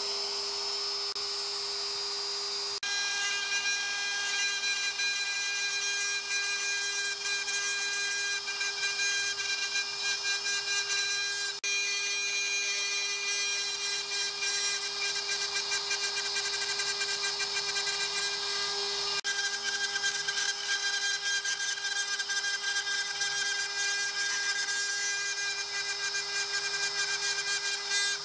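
Inventables X-Carve CNC router spindle running with a steady whine as its end mill cuts through wood. The sound changes abruptly about three seconds in, and twice more later.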